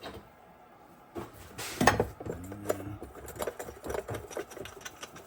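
Tool work on a wagon wheel's axle bolt: a sharp metal clank about two seconds in, then a run of small metallic clicks and clinks.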